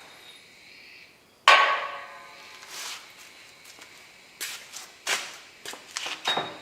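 Steel struck in a metal workshop: one loud clang about a second and a half in that rings on, then a handful of sharper knocks near the end.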